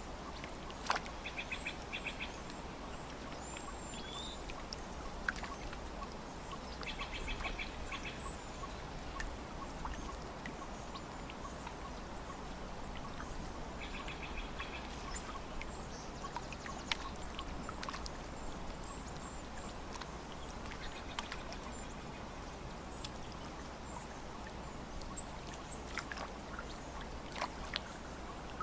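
Lake water lapping gently against the shore with small, irregular splashes, while birds call. A short call of quick pulses comes back about every six or seven seconds, and thin high chirps sound in between.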